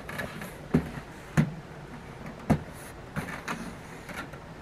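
A large cardboard appliance box being handled and lifted, giving a few short knocks and bumps about a second apart, the loudest about two and a half seconds in.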